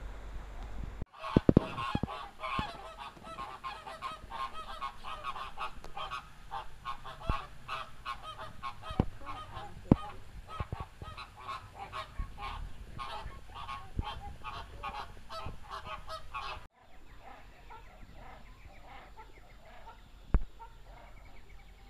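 A flock of birds honking, many calls overlapping in a dense chorus that cuts off suddenly about three-quarters of the way through; a quieter stretch with one sharp click follows.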